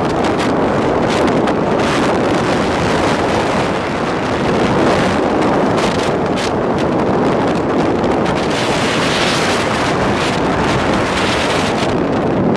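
Wind buffeting the microphone of a camera on a vehicle moving at highway speed: a loud, steady rush with frequent short gusts, mixed with road noise.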